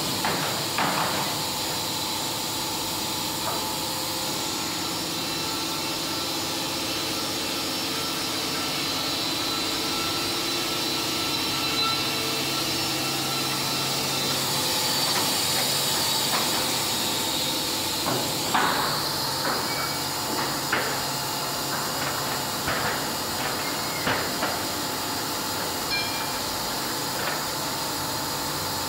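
Wood-Mizer WM3500 thin-kerf band headrig sawing a log: a steady hiss with a faint hum from the machinery. About two-thirds through, the sound shifts, and a run of short knocks and clicks follows.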